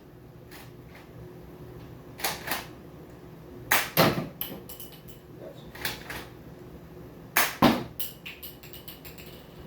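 Toy M32 grenade launcher being worked and fired: four pairs of sharp plastic clacks, then a quick run of light ticks near the end.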